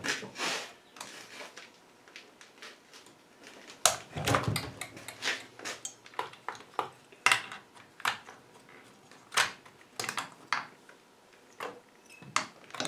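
Irregular clicks, knocks and clatters of plastic and metal parts being handled as the side cover is taken off a Husqvarna 55 chainsaw on a wooden bench, baring the flywheel to get at an ignition coil that gives no spark.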